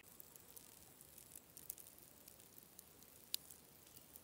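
Near silence: faint outdoor ambience, a low hiss dotted with small scattered clicks and crackles, with one sharper click a little after three seconds in.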